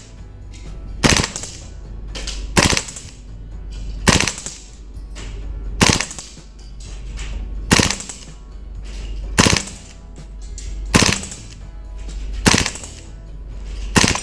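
VFC/Umarex MP5A5 gas blowback airsoft gun firing on three-round burst, nine bursts in all, about one every one and a half to two seconds, each a sharp burst of the gas-driven bolt cycling. Faint background music runs underneath.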